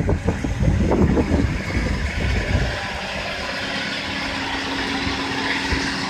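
John Deere 6215R tractor's six-cylinder diesel engine running steadily under load while pulling a plough and passing close by, a steady drone with a hum on top. Wind buffets the microphone during the first two or three seconds.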